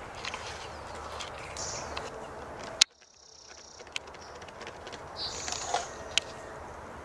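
Outdoor ambience with birds chirping. A sharp click a little under three seconds in, after which the background drops away and slowly comes back, with more chirps and a few light ticks near the end.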